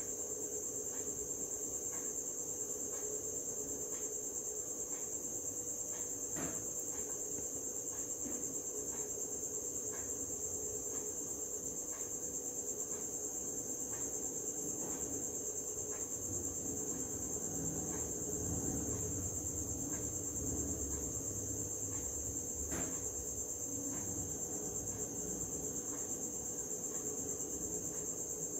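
Steady high-pitched drone with a faint low hum beneath it and faint ticks about once a second; no voice or music.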